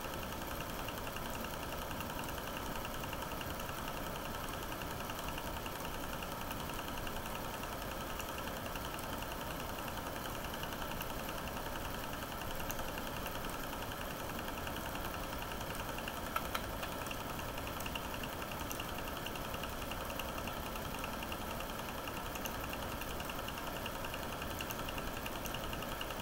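A 9.5mm cine projector running: a steady mechanical whirr with a fast, even clatter from the film-pull mechanism, and two brief clicks a little past halfway.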